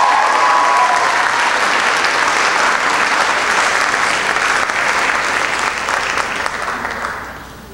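Theatre audience applauding, loud and steady, dying away near the end.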